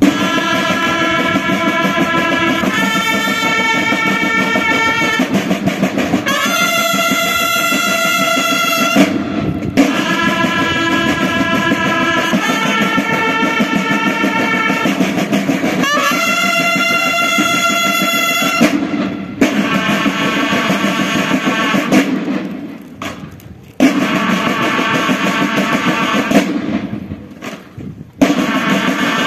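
A bugle and drum corps (Mexican banda de guerra) playing together: bugles sound phrases of long held notes over steady snare drumming. The playing breaks off briefly twice near the end, then resumes.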